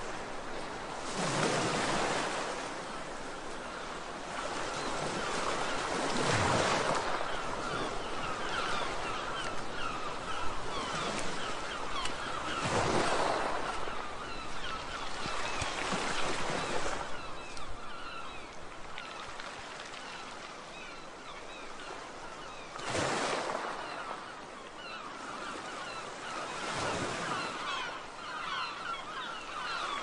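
Sea waves washing ashore one after another, about six times, each swelling into a rushing surge and falling back, with a steady hiss of surf in between.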